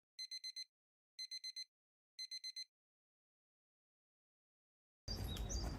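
Electronic beeps: three quick runs of four short high pips, about a second apart, over dead silence. Near the end, outdoor background noise comes in, with a bird chirping.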